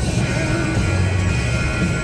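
Music playing from the car radio, heard inside the moving car's cabin.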